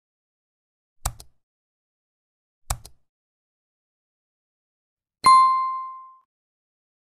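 Sound effects of a subscribe-button animation: two short mouse clicks about a second and a half apart, then a single notification-bell ding that rings out for about a second.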